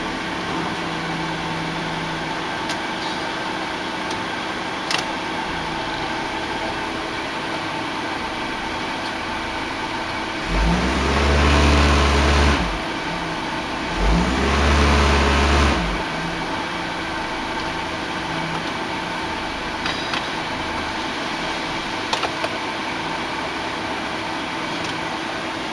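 Mercedes-Benz V-Class M111 inline-four petrol engine (code 111978) idling steadily, then revved twice, about ten and fourteen seconds in, each rev held for about two seconds before it drops back to idle.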